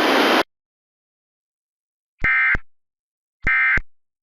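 A radio hiss rising then cutting off abruptly half a second in; after a pause, two short bursts of EAS SAME digital data tones, about a second and a quarter apart: the end-of-message code that closes an Emergency Alert System weather radio broadcast.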